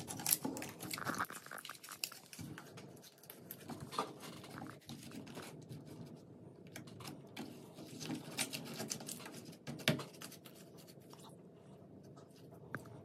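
Faint, irregular sticky clicks and crackles from iron-filled magnetic slime as it creeps up and wraps around a neodymium block magnet, with a few sharper ticks.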